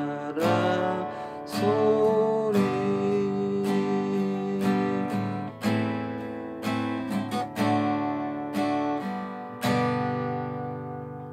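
Acoustic guitar strumming chords as the song's closing bars, the last chord struck near the end and left ringing as it fades.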